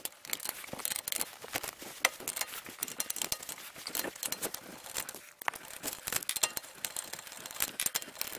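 Wheel nuts being unscrewed from a car's alloy wheel with a long socket wrench: a fast, irregular clicking and rattling of the socket and turning nut, with a short lull about five seconds in.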